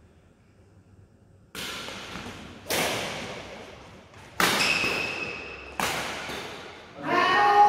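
Badminton rally: four sharp racket strikes on the shuttlecock, about a second and a half apart, each ringing on in the hall's echo. Players' voices break out near the end as the rally finishes.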